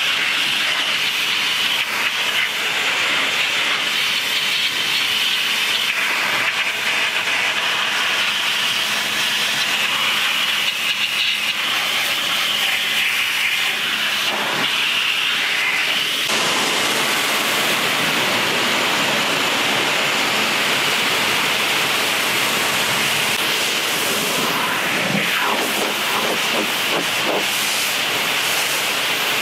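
Pressure washer jet hissing steadily as it sprays water onto a car's front end and grille, then onto its rear window and deck lid. The spray's sound changes about halfway through.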